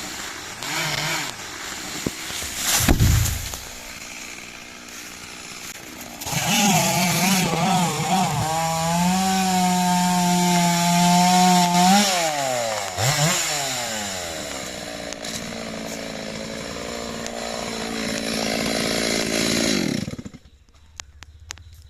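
Stihl two-stroke chainsaw running at high revs from about six seconds in, its pitch wavering and dipping as it cuts through wood, then stopping abruptly near the end. Shorter bursts of noise come in the first few seconds.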